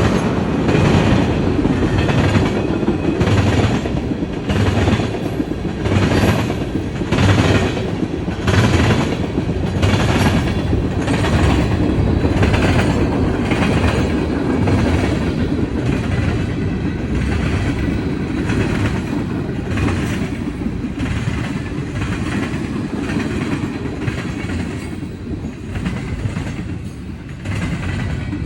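Train rolling past with a steady rumble and the regular clickety-clack of its wheels over the rail joints, about a click every 0.7 s. The clicks grow weaker over the second half.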